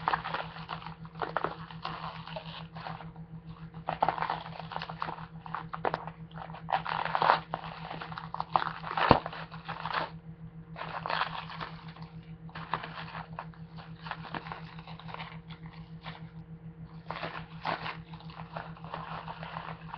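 Crinkly packing material rustling and crackling in irregular bursts as it is pulled out of a cardboard box, with scattered sharp clicks and one louder knock about halfway through. A steady low hum runs underneath.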